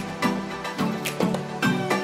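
Instrumental music: quick, sharply struck notes that each fade, over a steady beat.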